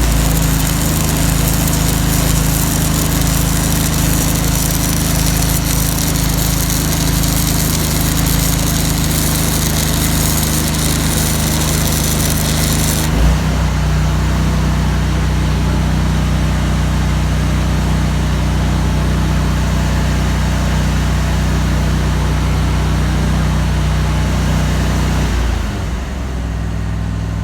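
Stick welding with a 3/16 in 5P+ (E6010) rod at high amperage: the arc crackles and hisses over the engine-driven welder's engine, which is bogging down hard under the load. About halfway through the engine note shifts and the arc hiss gets softer, and near the end the arc stops and the engine note changes again.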